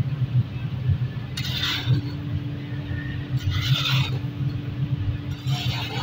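A steel shovel scraping through foundry moulding sand and across a metal pan in three strokes about two seconds apart. Under it runs a steady low machine rumble with a faint hum.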